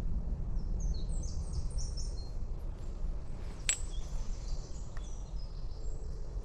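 Woodland ambience with a low wind rumble on the microphone and small birds chirping in quick high notes during the first half. A sharp click sounds just past the middle, with a fainter one about a second later.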